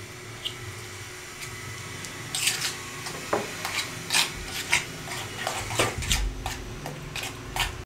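Metal spoon scraping and tapping against a bowl while mashing boiled egg yolks into mayonnaise. Irregular short scrapes and clicks start about two seconds in.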